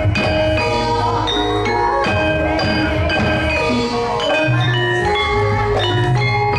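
Javanese gamelan ensemble playing: metallophones ring a steady stream of struck notes over low sustained gong-like tones.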